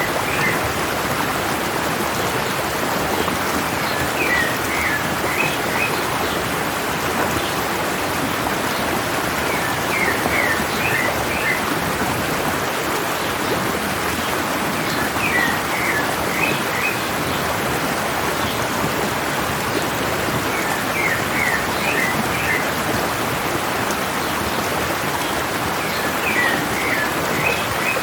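Stream water running steadily down a mountainside, with a bird singing a short phrase of several quick chirps about every five to six seconds.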